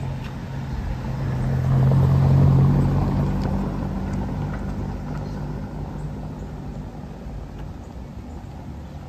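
A car driving slowly past on a cobblestone street, its engine hum and tyre rumble loudest about two and a half seconds in, then fading away.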